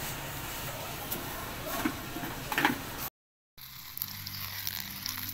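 Market-stall background noise with faint voices and a few clicks, cut off abruptly about three seconds in. After a short gap, tap water runs onto fish in a plastic basket.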